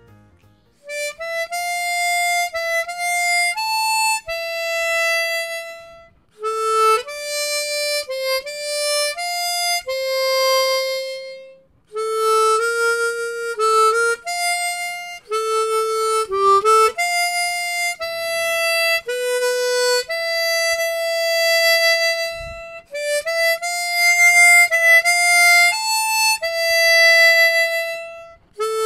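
Hohner Xpression 12-hole chromatic harmonica played solo with a clean tone: a melody of single held notes in phrases, with short breaks between phrases.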